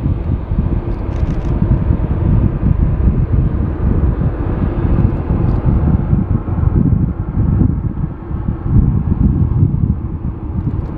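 Boeing 787-9 jet engines at taxi power, a steady rumble, with gusty wind buffeting the microphone and making the low end rise and fall.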